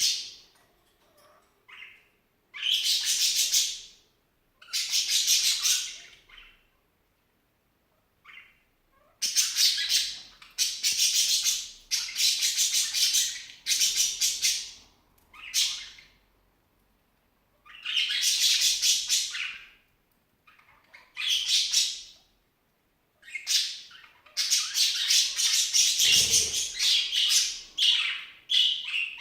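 A small pet squeaking while it feeds: loud, shrill squeals of one to two seconds each, coming again and again with short silences between, running closer together near the end.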